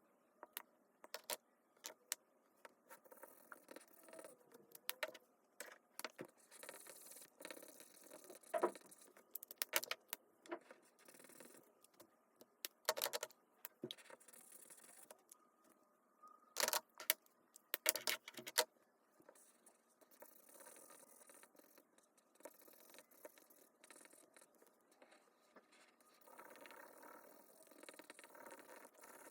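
Small hard plastic toy pieces being handled and set down: irregular light clicks, taps and scrapes. A few sharper clicks come in clusters around the middle.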